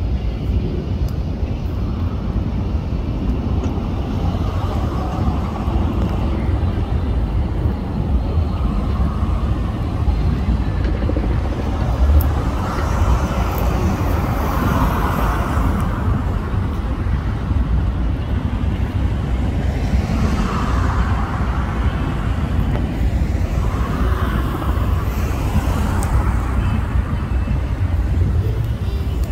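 Steady low rumble of vehicle and road-traffic noise.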